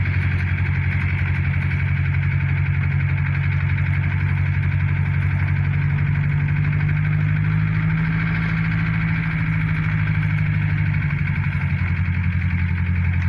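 A motor running steadily at idle: a continuous low hum with a fast, even pulse.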